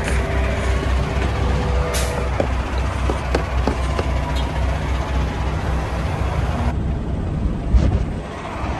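Semi-truck diesel engine running, a steady low rumble heard from inside the cab, with clicks and knocks from the phone being handled and a louder thump near the end.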